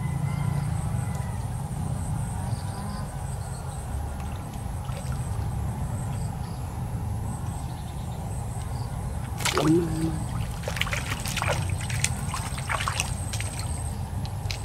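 Water sloshing and splashing: a sharp splash about two-thirds of the way in, then a quick run of short splashes. A steady low rumble runs underneath.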